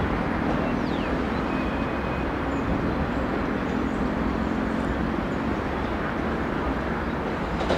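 Metrorail electric commuter train approaching slowly: a steady rumble with a faint hum.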